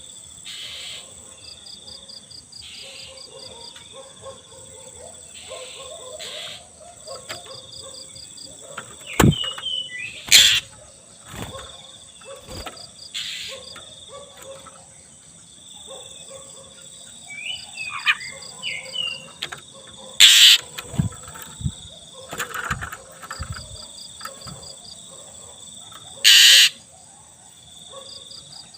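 Oriental magpie-robin (black-breasted kacer) giving short whistled notes and several loud harsh bursts, over steady pulsed chirping of crickets.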